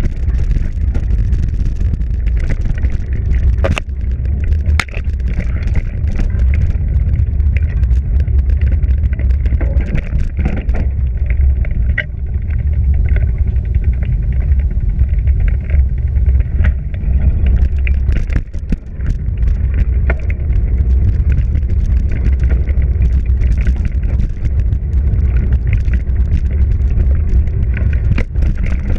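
Bicycle riding over a rough trail, heard from a bike-mounted camera: a steady low rumble of wind and tyre noise, with frequent clicks and rattles as the bike and its bag jolt over bumps.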